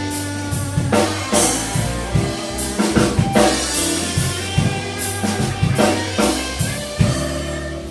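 Live blues band playing a slow blues between sung lines: drum kit with snare and kick hits over bass, guitar and keyboards.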